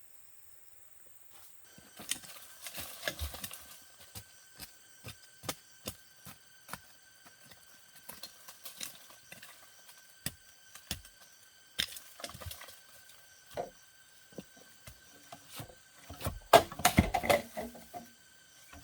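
Scattered wooden knocks, cracks and snaps, with denser flurries about two seconds in and again near the end: wood being handled and broken.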